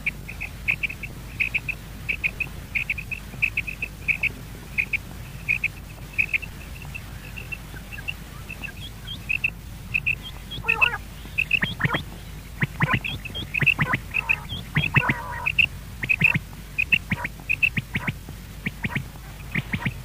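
Quail calling in short high notes, repeated about twice a second. From about ten seconds in, bursts of scratchy rustling join it as the quail dust-bathes in the sand.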